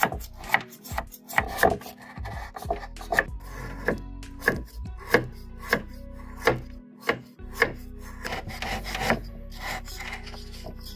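A kitchen knife cutting a hard block of jaggery on a wooden cutting board. Each stroke ends in a sharp knock of the blade on the board, about one to two a second, with rubbing scrapes of the blade through the sugar between them.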